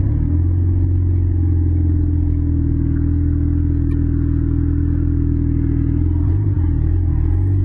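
Car engine heard from inside the cabin while driving, running at steady revs, then starting to rise near the end as the car accelerates.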